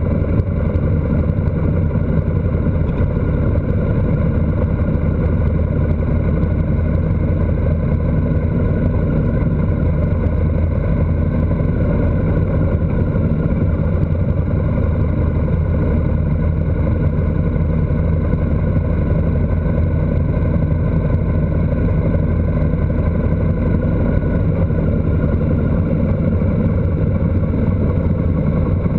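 A vehicle's engine running at a steady cruise, mixed with road and wind noise picked up by a camera mounted on the vehicle. It stays even throughout, with no revving or gear changes.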